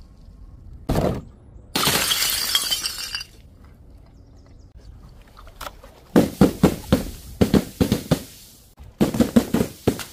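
A sharp knock, then glass shattering on paving stones in a long crash about two seconds in. Later come two quick runs of knocks and thuds as objects tumble and hit the ground.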